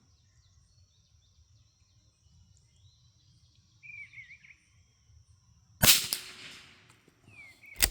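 A single shot from a Brno Model 1 .22 LR rifle about six seconds in: one sharp crack with a short trailing echo. A bird chirps faintly before it.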